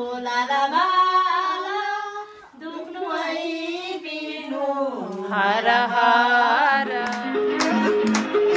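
Women singing a Bhailini festival song, with long, wavering sung lines and a brief break near the middle. About seven seconds in, music takes over with a short plucked-string melody that repeats.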